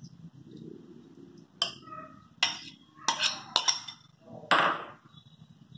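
Steel spoon clinking and scraping against a stainless steel mixer-grinder jar and bowl as grated coconut is spooned in: a handful of sharp clinks, some ringing briefly, the loudest a longer scrape near the end.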